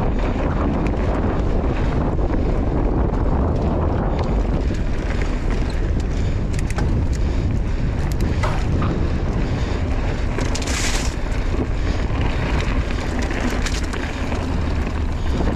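Wind buffeting the camera microphone on a mountain bike riding a dirt trail, over a steady rumble of tyres rolling on the ground. Scattered clicks and rattles come from the bike, with a short hiss about eleven seconds in.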